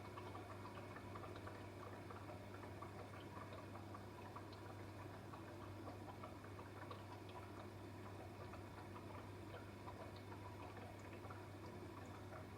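Dishwasher running quietly: a steady low hum with faint water trickling and dripping inside the tub and scattered small irregular ticks.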